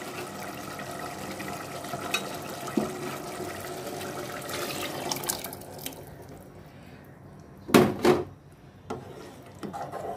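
Lentils soaked in water poured from a plastic bowl into a pot of boiled beef, a steady pouring wash for about five seconds. Then two loud knocks about eight seconds in, and a smaller one a second later.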